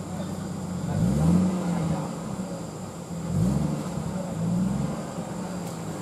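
Off-road 4x4 competition vehicle's engine running steadily, revved up and back down three times as it struggles up a steep muddy bank.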